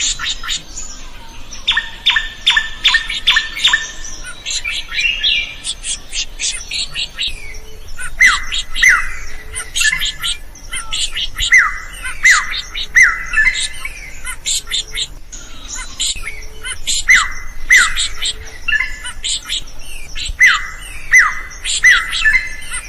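Drongo (srigunting) singing loudly in a varied, chattering run: a fast burst of strokes about 2 s in, then a string of downward-sweeping whistled notes, roughly one every 0.7 s, mixed with sharp clicking notes.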